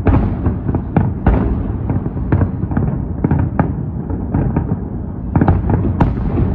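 Fireworks salute going off in rapid succession: many overlapping bangs over a continuous rumble, with the loudest bursts right at the start, about a second in and near the end.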